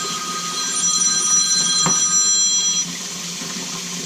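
Tap water running steadily, with a high ringing tone of several pitches over it for nearly three seconds that then cuts off.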